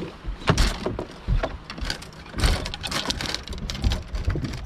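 A hooked largemouth bass splashing irregularly at the surface as it is fought toward the boat, with scattered thumps.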